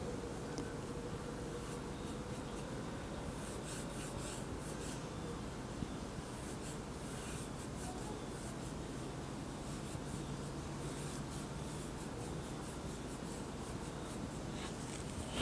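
Faint, intermittent strokes of a thin paintbrush laying oil paint on canvas, a soft scratchy swish now and then, over a steady low background hum.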